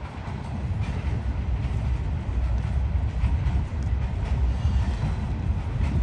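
Norfolk Southern mixed manifest freight train's cars rolling slowly past: a steady low rumble with occasional clacks from the wheels.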